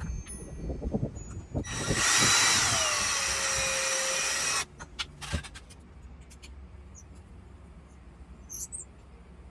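A small power tool runs for about two and a half seconds, its pitch dropping slightly and then holding, and cuts off suddenly. Knocks and handling noises come before it, and faint clicks after.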